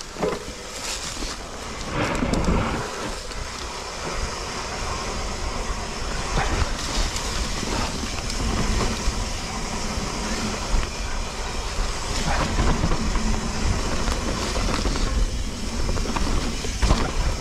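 Mountain bike riding fast down a rough dirt trail: tyres rumbling over the ground and the bike clattering, with a few louder knocks and a steady low buffeting noise on the action camera's microphone.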